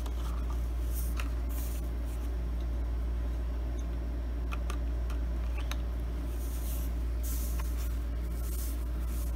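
A steady low hum throughout, with faint rubbing and a few light clicks from a cardboard card and plastic blister pack being handled.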